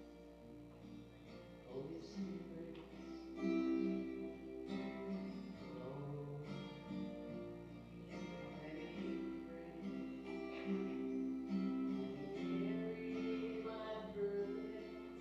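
A communion song with strummed acoustic guitar and a woman's singing voice.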